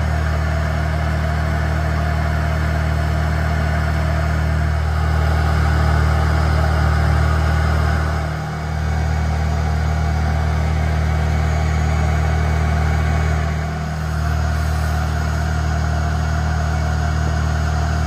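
Honeybee colony buzzing steadily around its comb inside a wall cavity, over a steady low drone.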